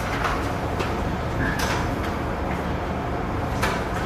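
Steady low rumble of ship's machinery in a steel passageway, with four sharp clicks and knocks spread through it, the two loudest about one and a half seconds in and near the end.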